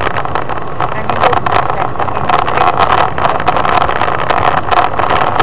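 Steady engine and tyre noise of a car driving on a snowy road, heard from inside the cabin through a dashcam's microphone, with many small ticks and rattles over it.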